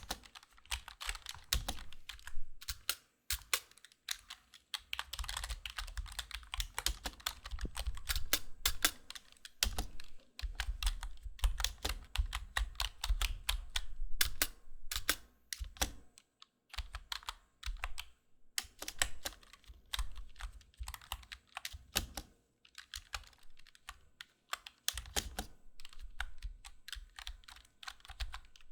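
Computer keyboard typing: runs of rapid key clicks broken by short pauses.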